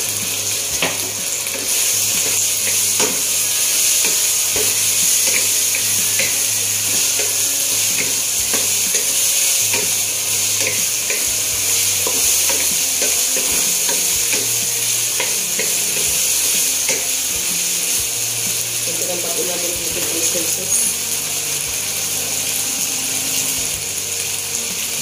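Diced pork, onion and carrot sizzling steadily in hot oil and oyster sauce in a nonstick wok, with scattered light clicks.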